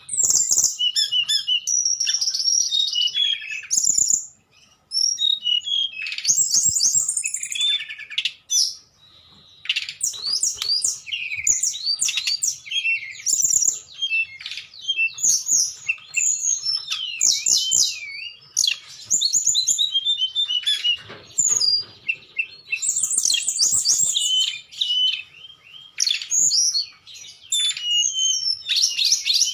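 A tledekan, a small Indonesian flycatcher, singing its fluting 'nyuling' song: a fast, varied run of high whistles and chirps in quick phrases, with a couple of short pauses.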